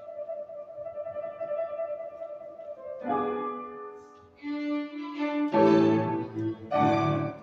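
Small string ensemble of violins and cello with piano. A violin holds one long note, then the group plays a series of loud chords with short breaks between them, the closing chords of the piece.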